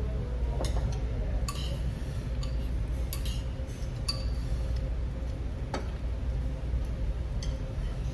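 Metal chopsticks and utensils clinking against ceramic bowls in scattered light clicks, over a steady low hum.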